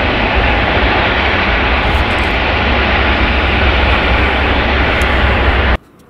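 Airbus A380's four Rolls-Royce Trent 900 jet engines running loud and steady as the airliner rolls along the ground, with a deep rumble beneath the roar. The sound cuts off suddenly near the end.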